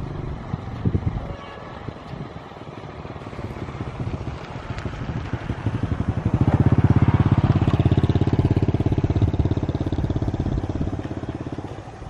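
A small engine passing by: a fast, even engine beat grows louder, is loudest a little past the middle, and fades toward the end.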